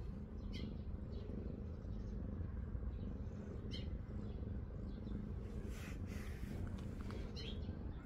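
Domestic cat purring as its head is stroked, a low, even rumble, with a few brief high chirps from birds in the background.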